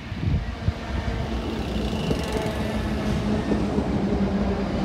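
ScotRail electric multiple unit running in alongside the platform: wheels rumbling on the rails with a steady electric hum. There are a couple of sharp knocks in the first second.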